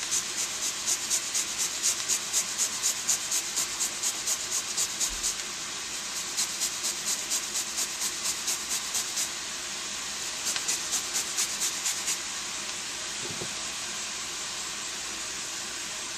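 Fresh ginger root grated on a metal microplane: quick rasping strokes, about three or four a second, in three runs with short pauses, stopping about twelve seconds in. A steady hiss remains after the strokes stop.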